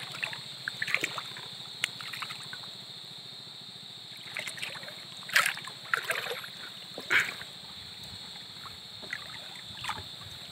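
Water splashing and sloshing in short bursts, a handful of times, as someone moves through the water along a floating gill net, over a steady high-pitched whine.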